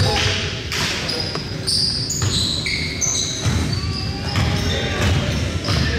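A basketball is dribbled on a hardwood gym floor, with repeated thumps, as players run. Short, high sneaker squeaks at changing pitches come in between.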